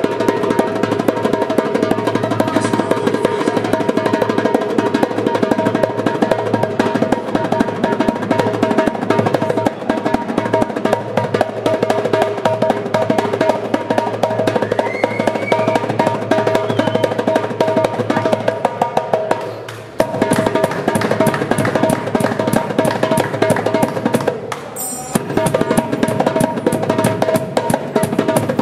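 A didgeridoo drone played together with fast drum rolls on a darbuka goblet drum. The drone breaks off briefly twice near the end.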